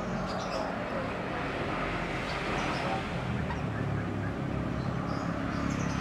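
Outdoor background sound: a steady low hum like distant traffic, with a few short, high bird chirps near the start and again near the end.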